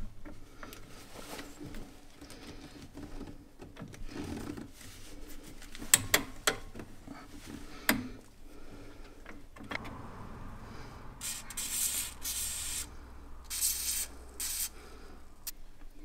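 Pliers clicking and scraping against the steel parts of a VW Beetle rear drum brake as the brake shoe return springs are hooked in, with a few sharp metallic clicks in the middle. About eleven seconds in, a few seconds of harsh rasping rubbing.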